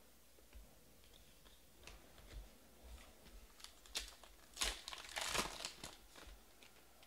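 Trading-card pack wrapper being torn open and crinkled, in scattered crackles that build to a dense run of crinkling about two-thirds of the way through as the cards are slid out of the wrapper.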